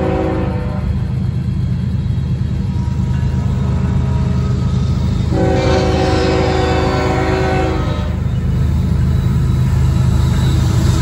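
Diesel freight locomotive air horn: the tail of one blast just after the start, then a second blast of about two and a half seconds about five seconds in. Under it the heavy, steady rumble of diesel locomotives, growing louder near the end as the oncoming train nears.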